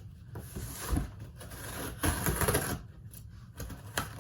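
A cardboard shoebox being handled and opened: a knock about a second in, then a scraping rustle around two seconds in, with scattered small clicks and taps.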